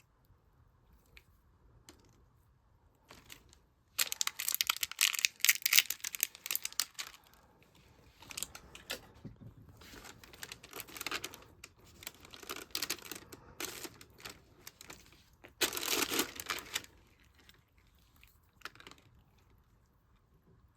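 Slime mixed with beads being squished and worked, giving dense crackling and popping. The loudest stretches come about four seconds in and again near sixteen seconds, with softer crackling between.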